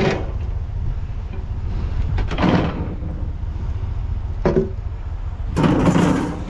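Junk being pulled and shifted about in a dumpster: a few scraping, clattering bursts, the loudest and longest near the end, over a steady low rumble.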